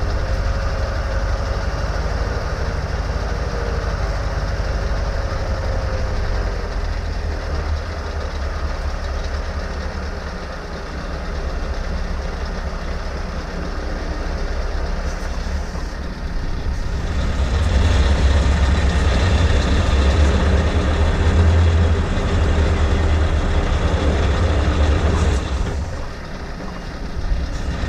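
Scania R520 truck's V8 diesel engine running as the truck moves slowly, heard from a camera mounted on the outside of the truck: a steady deep rumble that grows louder about two-thirds of the way through, with a brief dip near the end.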